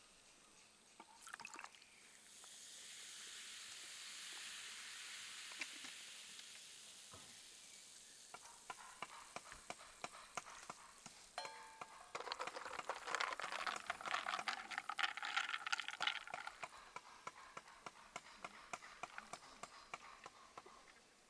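Food frying in a pan: a steady hiss of sizzling that swells and fades over several seconds, then a stretch of louder crackling and spitting, with scattered small clicks throughout.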